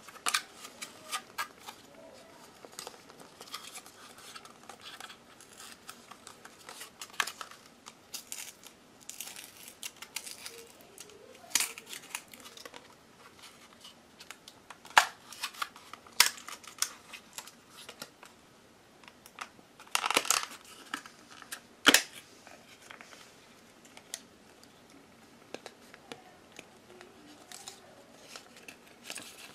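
Clear plastic packaging of a laptop RAM stick being handled and opened by hand: irregular crinkling and sharp plastic clicks, the loudest clicks around the middle and again about two-thirds of the way through.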